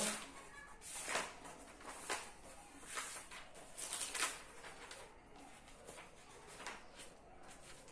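Pages of a book being turned by hand, a paper rustle about once a second for the first four seconds or so, then softer paper handling.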